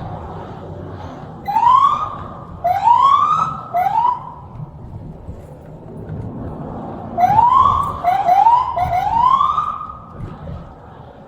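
Police siren giving short rising whoops in two quick bursts of three or four, over the low rumble of a vehicle.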